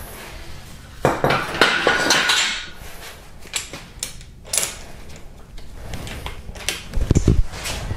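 Metal tool clatter from a ratchet with a triple square socket working a cylinder head bolt loose on a Hyundai/Kia 2.4 GDI engine. A loud burst of clanking and clicking comes about a second in, scattered clicks follow, and a few low knocks come near the end.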